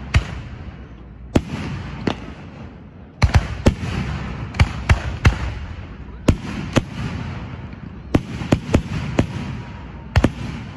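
Aerial firework shells bursting in an irregular volley of sharp booms, about eighteen of them, bunched thickest in the middle and again near the end, with a low rumbling echo rolling on between the reports.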